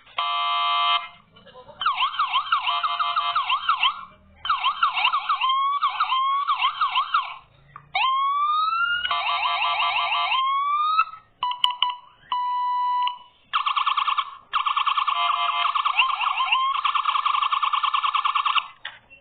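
Custom electronic siren cycling through its tones: fast up-and-down yelps, rising sweeps, a two-note hi-lo in the middle and rapid warbles, each pattern broken off by a short pause before the next.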